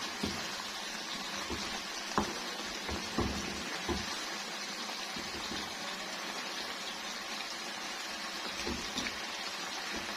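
Chicken and yogurt masala cooking in a pot: a steady sizzle and bubble as the qorma masala is fried down. A few light knocks of a spoon against the pot come early and again near the end.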